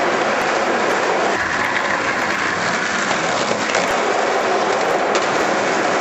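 Skateboard wheels rolling over concrete, a steady rolling noise without a break.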